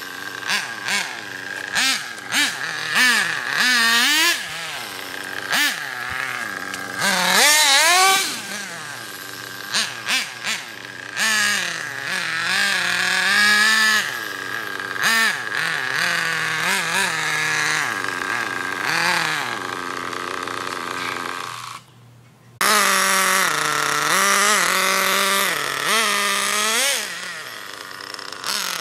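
OFNA Ultra LX Comp 1/8-scale nitro RC buggy's small glow engine revving up and down as it is driven, its whine rising and falling over and over. The sound drops out for about half a second roughly three-quarters of the way through.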